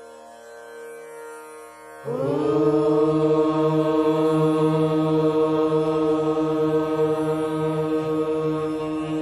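A group of voices chanting one long held note in unison, starting suddenly about two seconds in and sustained without a break. Before it there are only faint steady tones.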